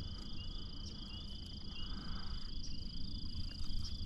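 Evening chorus of calling insects and frogs: a steady high trill with a rapid, lower pulsing chirp just beneath it, over a low rumble.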